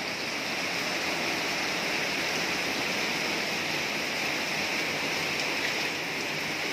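Heavy rain pouring down steadily, falling on paving, garden plants and a tub of standing water.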